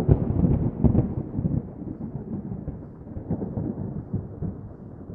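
A deep, crackling rumble, like rolling thunder, that slowly fades.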